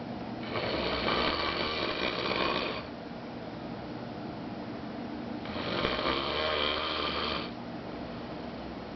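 A man snoring really loud: two long snores, each about two and a half seconds, about five seconds apart, with quieter breathing between them.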